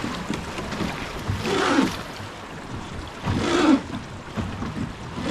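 Rushing river water and wind noise on the microphone aboard a river boat, with three louder swishes about two seconds apart.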